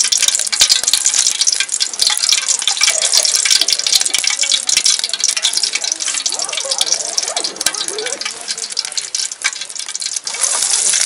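Hot cooking oil crackling and sizzling in an aluminium pot on a portable gas stove. Near the end, chopped garlic and shallots drop into the oil and the sizzle grows louder.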